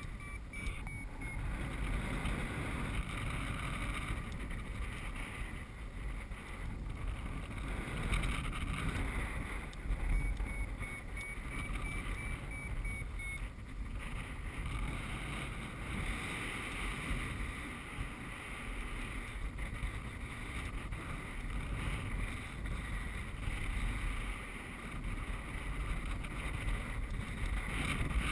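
Airflow buffeting the microphone of a paraglider pilot's camera in flight: a steady rushing rumble with hiss that swells and eases.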